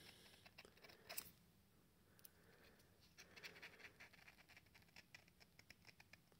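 Faint scraping and ticking of a snapped piston ring's sharp end being pushed around the ring groove of a Peugeot 1.2 PureTech piston, scratching out carbon deposits so the new rings can seal. The small ticks grow more frequent in the second half.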